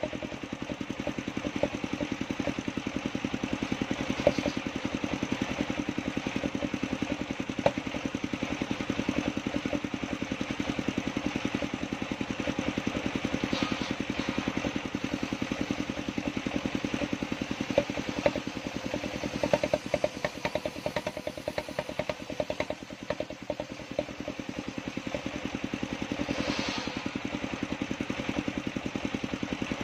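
Engine-driven table circular saw running steadily with a fast, even engine pulse as boards are ripped lengthwise. There are occasional knocks and clatter from the wood, and a brief hissing cut about three-quarters of the way in.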